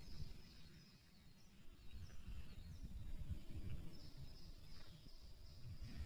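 Faint, scattered high bird chirps over a low, uneven outdoor rumble.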